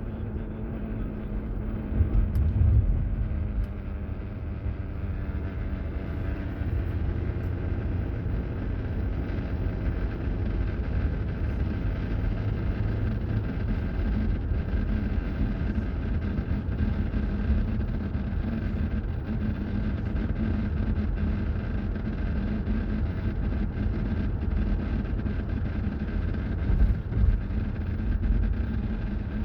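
2017 Ford Explorer running, a steady low rumble with a steady buzzing tone over it: the buzzing noise the owner is trying to track down. It swells louder briefly about two seconds in and again near the end.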